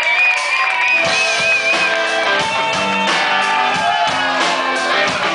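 Live reggae-punk band playing, with strummed guitar chords over a steady beat and a high wavering tone over the first two seconds.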